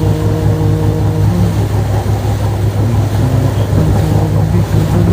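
Steady low rumbling noise, the added noise bed under a Quran recitation, with a man's voice faintly holding long drawn-out chanted notes over it.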